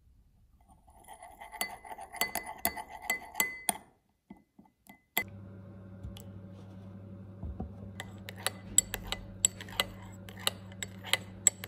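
A metal spoon clinking against a small glass bowl as egg yolk is stirred, then beaten with milk into egg wash: quick, irregular ringing clinks in two spells. A steady low hum runs under the second spell.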